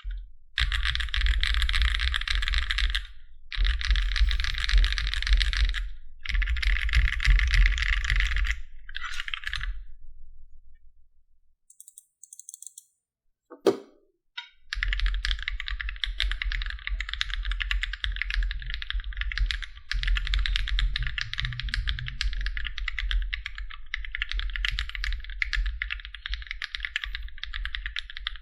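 Typing on a MonsGeek M1 mechanical keyboard: rapid key clicks in runs of a few seconds, a pause of about four seconds with one sharp click, then steady continuous typing.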